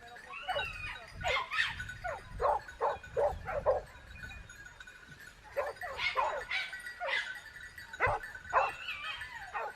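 Dog barking in quick runs of short barks, with a few longer, bending whine-like calls between the runs.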